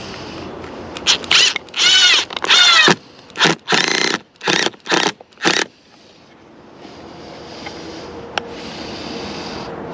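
Power drill run in a series of short trigger bursts, its motor pitch rising and falling with each pull. The bursts start about a second in and stop a little past halfway.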